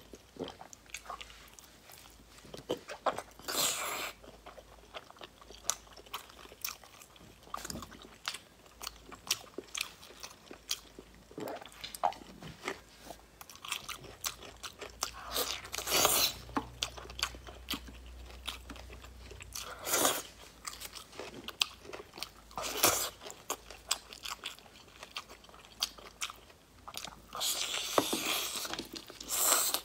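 Close-miked mouth sounds of a person biting and chewing soy-braised pork belly: a stream of small wet clicks and smacks, with a few louder bites spread through.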